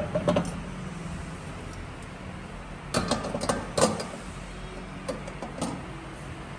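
Metal lid of a cast incense burner being fitted onto its bowl: a few sharp metallic clinks, two louder ones about three and four seconds in and fainter ones after, over a steady low background hum.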